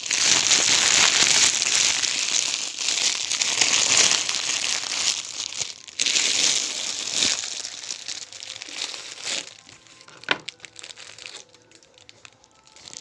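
Packaging being handled and opened in an unboxing, crinkling and rustling loudly for most of the first nine seconds with a short break partway. It then thins to a few light taps and one sharp click.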